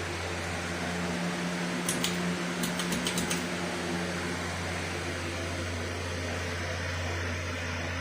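Harbor Breeze Armitage ceiling fan running with a steady low motor hum. About two seconds in comes a quick series of about six light clicks.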